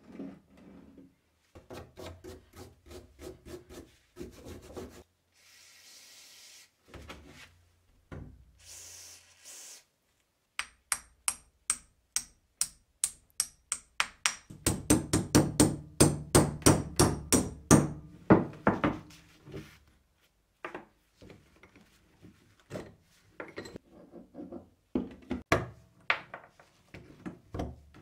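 Hand work on the rusty iron roller shaft and gear of an antique grape crusher: knocking and scraping of metal parts, and two short hisses a few seconds in. About halfway through comes a loud run of hammer blows on the gear end of the shaft, about three to four strikes a second. Near the end a screwdriver taps and scrapes at a retaining clip on the shaft.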